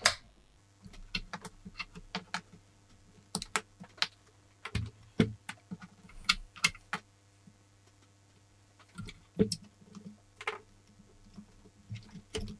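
Bench power supply switch clicking off, then irregular clicks and knocks as banana-plug test leads are pulled out of one multimeter and pushed into the jacks of another.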